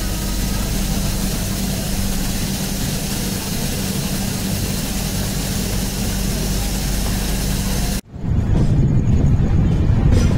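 Train running noise: a steady rushing of wheels and air with a low hum underneath. It cuts off abruptly about eight seconds in, and a rumblier stretch of train noise follows.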